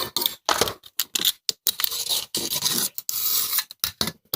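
Package of new motorcycle brake pads being opened and handled by hand: irregular scraping and rubbing of packaging, broken up by many short gaps.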